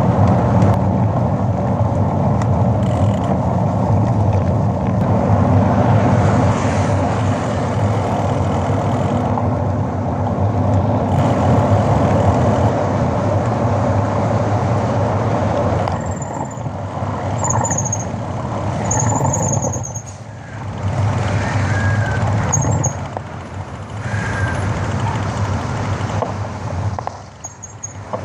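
Road and engine noise heard inside a car's cabin while driving at speed, easing and dipping as the car slows in heavier traffic in the second half, with a few brief high squeaks.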